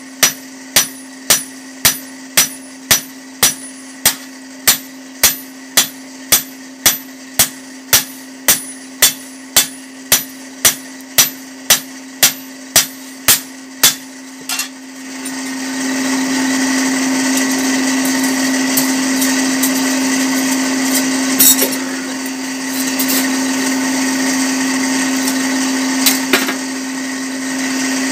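Blacksmith's hammer beating a chopper blade on the anvil in steady blows, about two a second, over the steady hum of the forge's electric blower. The hammering stops about halfway, and a louder steady whir, a power grinder sharpening the blade edge, takes over.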